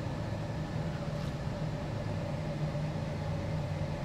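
Steady low hum of a car idling, heard from inside the cabin.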